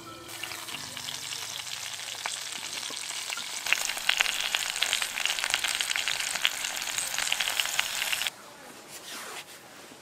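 Meat sizzling on a hot grill: a steady frying hiss that grows louder with crackling pops about four seconds in, then cuts off suddenly near the end.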